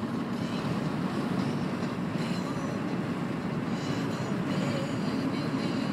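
Steady engine and tyre noise of a car driving along an open road, heard from inside the cabin.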